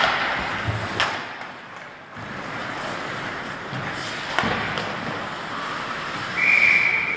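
Ice hockey play with a few sharp knocks of sticks and puck, then about six and a half seconds in a referee's whistle blows once for about a second, stopping play.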